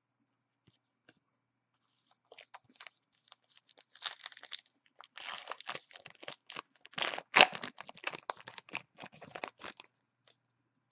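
A trading-card pack wrapper being torn open and crinkled by hand. Scattered crackles start about two seconds in and build into dense crinkling and tearing, loudest about two-thirds of the way through, then stop about a second before the end.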